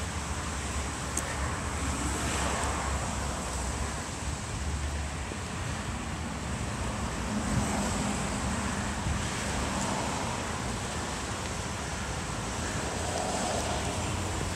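Steady outdoor noise: wind buffeting the microphone over a low rumble of road traffic.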